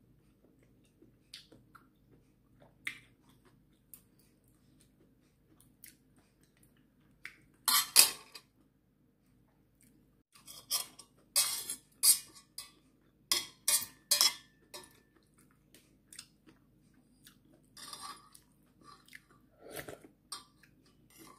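A person eating seaweed-soup ramyeon. Faint clicks of a metal spoon and chopsticks against a stainless steel pot come first, then loud eating sounds from about eight seconds in: slurping of noodles and broth and chewing, in short bursts.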